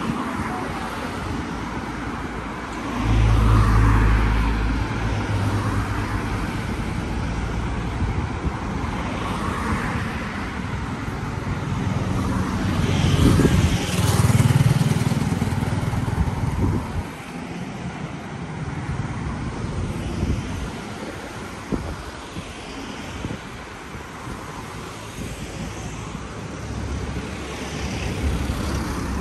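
Street traffic with cars passing, the loudest going by about 13 to 15 seconds in, and a low rumble about three seconds in.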